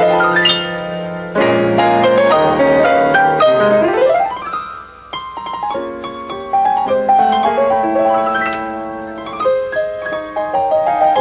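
Background piano music: held notes and chords changing steadily, with a quick rising run about four seconds in.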